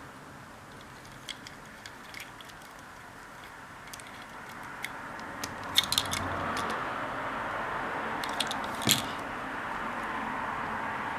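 Scattered light clicks and taps of small parts being handled, with a quick cluster about six seconds in and a sharper click near nine seconds, over a steady hiss.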